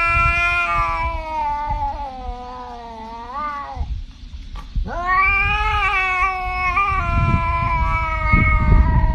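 A domestic cat yowling in two long, drawn-out calls: the first trails off with a short upward bend a little before halfway, and the second starts about five seconds in and is still going at the end. A low rumbling noise runs underneath.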